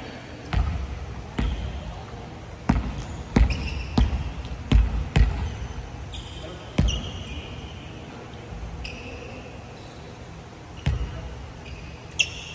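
A volleyball thumping on a wooden gym floor and off players' hands: about ten sharp impacts at uneven intervals, most of them in the first half and two more near the end. Short high squeaks come between some of the thumps.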